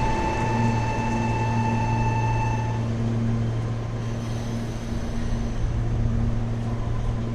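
Meitetsu electric train running past at the station's level crossing: a steady whine that cuts off about three seconds in, over a steady low hum.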